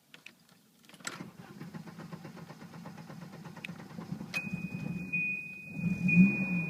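Volvo 740 Turbo's 2.3-litre four-cylinder turbo engine starting about a second in and running with an uneven, pulsing rough idle, the sign of a failing radio suppression relay. A steady high beep comes in a little past the four-second mark.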